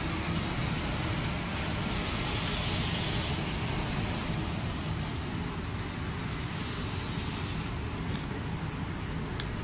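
Steady hum and hiss of an automatic paint-spraying line running, its machinery and conveyor going without a break, with a few faint ticks near the end.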